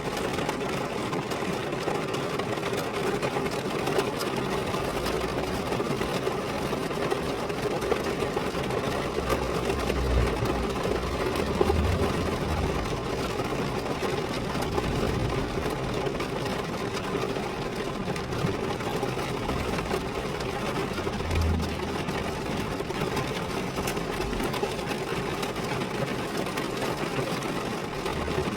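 Steady rain drumming on a car, a dense, even patter of drops on the body panels, with a few brief low thuds in the middle.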